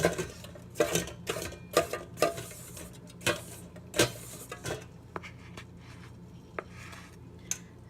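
Spoon and container clinking and scraping: irregular knocks and clicks, most of them in the first four or five seconds and only a few after.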